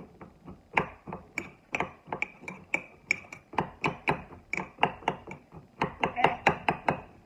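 Metal spoon knocking and scraping against the inside of a ceramic mug as it mashes chocolate-chip cookies in milk: quick, irregular clinks, about three or four a second, getting louder near the end.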